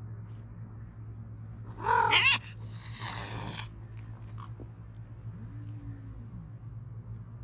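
Domestic brown tabby cat letting out a short, loud yowl about two seconds in, then hissing for about a second: a defensive warning at another cat that sniffed its rear.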